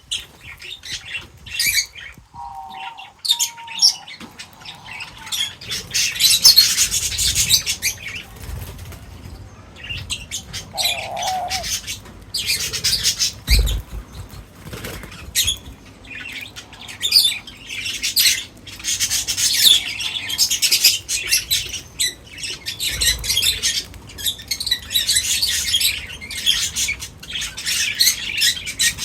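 Birds feeding, fluttering their wings and rustling in repeated bursts, with chirps among them; one dull thump about halfway through.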